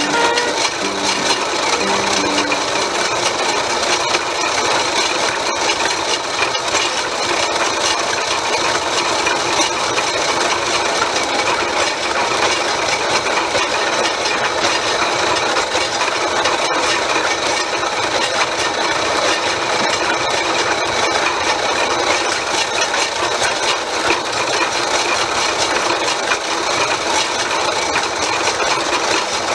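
A 1923 South Bend lathe running steadily under power, its motor and drive making a continuous mechanical whir.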